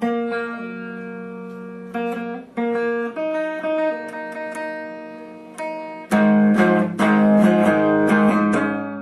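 Electric guitar playing chords that are left to ring and change every second or so. From about six seconds in it plays louder, harder-picked chords.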